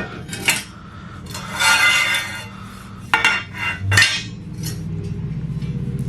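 Metal clanking and rattling: dismantled garage door opener rail sections and hardware being handled, with several sharp clanks and a longer rattle about two seconds in.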